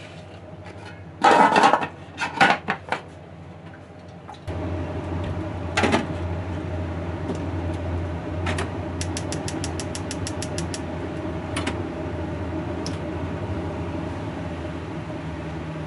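A few loud knocks and clatters in the first three seconds, then a steady mechanical hum that switches on abruptly about four seconds in and keeps running, with scattered light clicks and a quick run of ticks in the middle.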